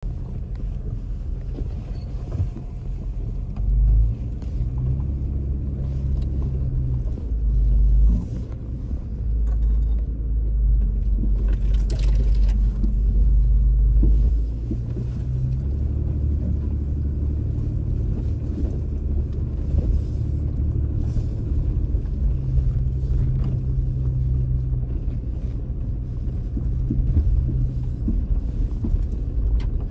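An off-road vehicle's engine running low and steady as it drives a rough dirt trail, heard from inside the cab, with its rumble swelling several times (briefly about 4 and 8 seconds in, then for several seconds until about 14 seconds in) as throttle is applied. Short knocks and rattles from the bumpy track are mixed in.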